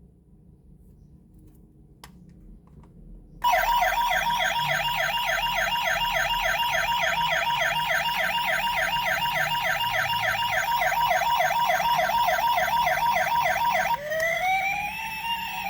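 Toy police car's electronic siren switching on after a few faint clicks, about three seconds in, with a fast warble of several cycles a second; near the end it changes to a slow rising and falling wail.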